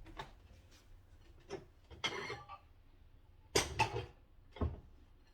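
Kitchenware being handled: a few separate knocks and clatters with a brief scrape, the loudest about three and a half seconds in, as a bowl and the air fryer's cooked potatoes are dealt with.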